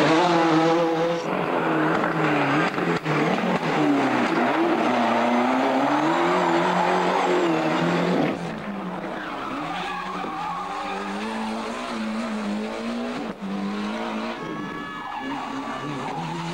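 Ford Escort RS Cosworth Group A rally cars, turbocharged four-cylinders with anti-lag, revving hard through corners, the engine pitch rising and falling through the gears, with tyres skidding on the tarmac. About halfway through the sound cuts to another car, quieter and farther off.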